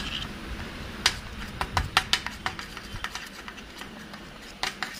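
A spoon stirring thick, sticky green slime in a small steel cup, giving a run of quick, sharp clicks and taps from about a second in, then a few more near the end.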